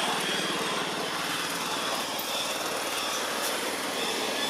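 A small engine running steadily in the background.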